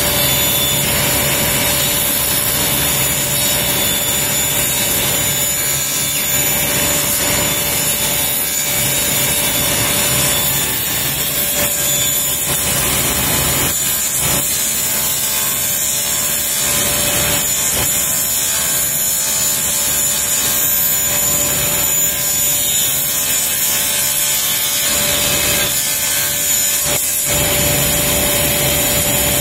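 Sliding table saw running while a plywood disc is turned by hand against its blade, the blade shaving the disc's edge round: a steady cutting noise over the saw's hum, with a few brief lulls.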